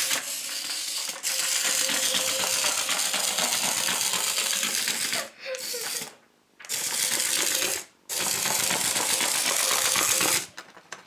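Remote-controlled toy caterpillar crawling, its mechanism making a fast, steady clicking rattle that stops and starts again a few times.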